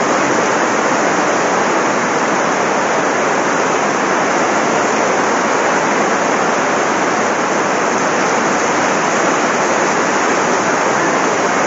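Heavy rain pouring down while floodwater rushes along the street: a steady, loud, unbroken hiss of falling rain and running water.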